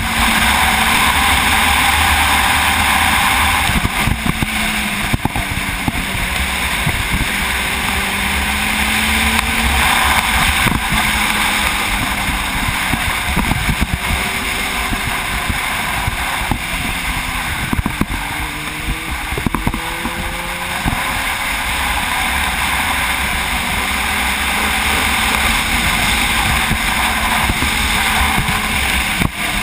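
Sport motorcycle engine under way, its pitch rising and falling again and again as the rider works the throttle and gears through bends, over a steady rush of wind on the microphone.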